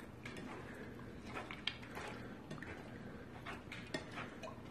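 Hands mixing cubed raw pork coated in egg and soy sauce in a bowl: faint handling of the meat with scattered small clicks, one sharper about a second and a half in.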